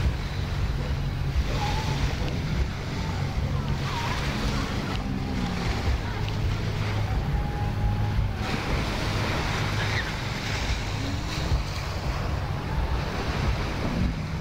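Wind buffeting the microphone over the wash of waves on a beach, with a faint steady low hum underneath.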